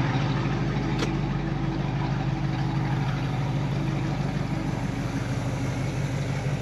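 1967 Chevrolet Camaro's engine idling steadily, with a single sharp click about a second in.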